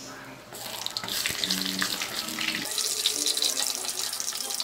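Breaded pizza rolls deep-frying in hot oil in a wok: a steady crackling sizzle that gets louder about half a second in.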